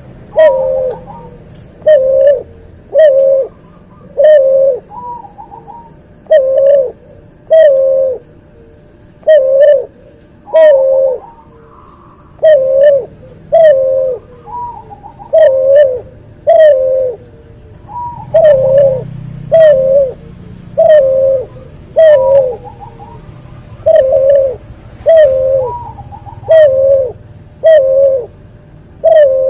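Cuhu dove, a hybrid of a white albino collared dove and a puter pelung, cooing loudly over and over: short coos about once a second, each dipping in pitch, with a few brief pauses between runs.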